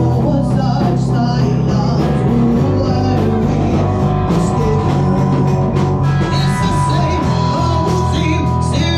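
Live rock band playing: electric guitar, drums and a woman singing lead, with a note held steadily from about six seconds in.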